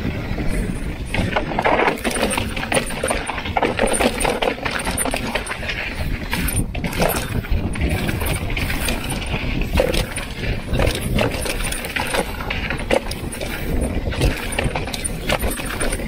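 Mountain bike riding fast down a dry dirt trail: wind on the microphone, tyres on dirt and gravel, and the bike rattling with frequent knocks and clatter over the bumps.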